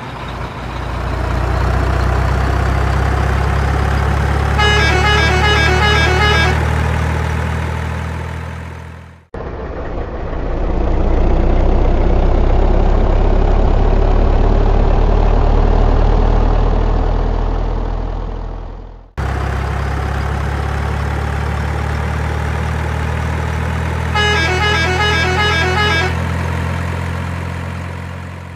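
Truck engine sound effect running steadily in three stretches that fade in and out, changing abruptly at each join. Twice, a quick series of horn toots sounds over the engine for about two seconds.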